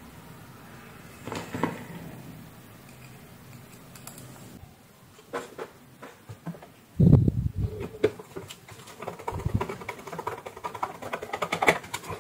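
Handling sounds of a repair: small clicks of a screwdriver and screws, a heavy low thump of the plastic blender base being moved on the bench about seven seconds in, then a run of quick ticks and clatter near the end.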